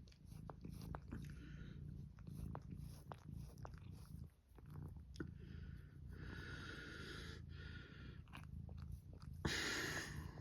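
Domestic cat purring steadily, a low pulsing rumble close to the microphone. Brief soft hissy noises break in a few times, the loudest about nine and a half seconds in.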